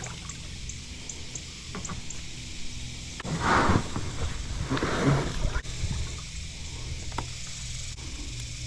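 Water splashing around a kayak in a shallow river: two louder splashes about three and a half and five seconds in, with a few light knocks.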